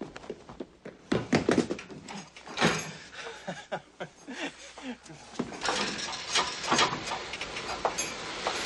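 A clatter of sharp knocks and thumps mixed with short vocal exclamations, then a denser rushing noise through the last few seconds.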